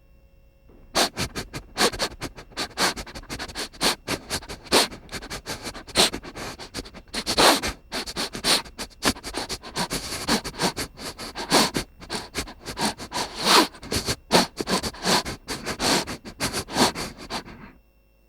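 Comedy sound effect of wet sniffing and slurping by a person, a fast, irregular run of short sharp sniffs and smacks with a few longer slurps. It starts about a second in and stops shortly before the end.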